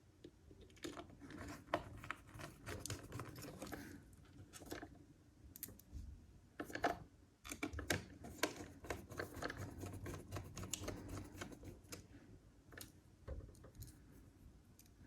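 Small screwdriver driving screws into a laptop's heatsink and fan assembly, with irregular light clicks and scratchy scraping of metal on metal and plastic.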